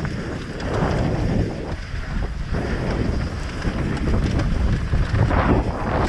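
Wind buffeting the microphone: a loud, uneven rush of noise, heaviest in the low end, surging and easing every second or so.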